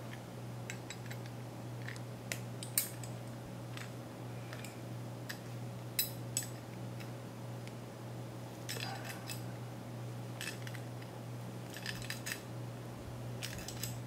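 Small metal clicks and clinks of steel mounting posts being fitted to a CPU water-block bracket with pliers, with a few sharper taps about three and six seconds in and quick runs of clicks later on. A steady low hum sits underneath.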